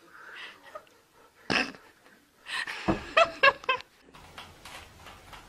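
A pet animal's short calls, several in quick succession about three seconds in, after a sudden louder noise about one and a half seconds in.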